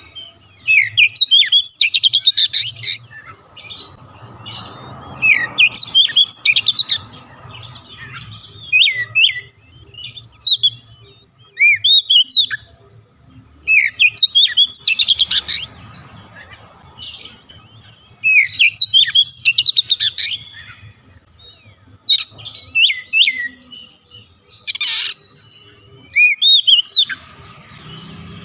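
Oriental magpie-robin (kacer) in full song: bouts of loud, varied whistled phrases with quick rising and falling notes and rapid rattling trills, broken by short pauses.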